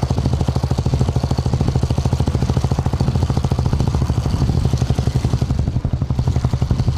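Royal Enfield Bullet single-cylinder engine idling through an aftermarket silencer: a steady, even run of rapid exhaust beats, about eight to ten a second.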